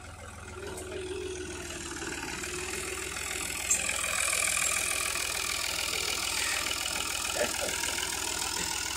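Al-Ghazi tractor's diesel engine running steadily as the tractor pulls a spring-tine cultivator through dry soil, growing louder as it draws close about four seconds in. A single short click sounds near the middle.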